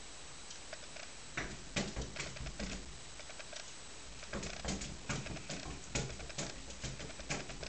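Irregular sharp taps and clicks of a cat's paws and claws on a glass tabletop, several a second, starting about a second and a half in.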